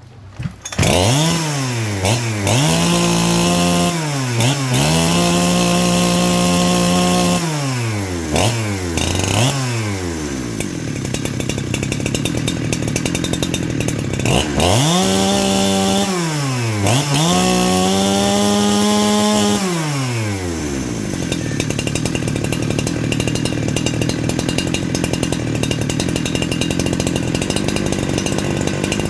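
Husqvarna 365 chainsaw's single-cylinder two-stroke engine starting about a second in and being revved hard to full throttle and back down, five times. It then settles and runs on steadily at low speed for the last third.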